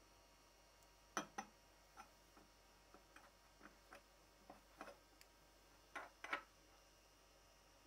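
Aluminium plate handled on a wooden tabletop, giving short knocks and taps: two sharp knocks about a second in, scattered softer taps, and two more sharp knocks about six seconds in as it is picked up and tilted.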